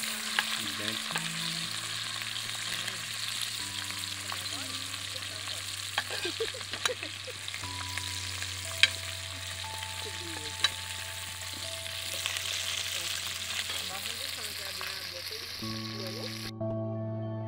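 Food frying in oil in a metal pot, a steady sizzle with scattered clinks of a metal spoon stirring against the pot. Soft background music with slow held notes plays throughout. The sizzling cuts off suddenly near the end, leaving only the music.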